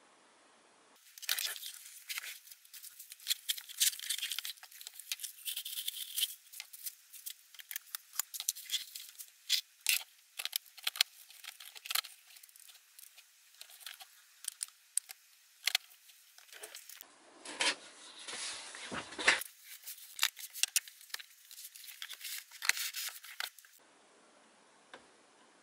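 Unboxing: packaging crinkling, rustling and tearing, with many sharp little clicks of plastic parts being handled, starting about a second in and stopping near the end. A fuller, coarser rustle of wrapping being pulled comes in the middle.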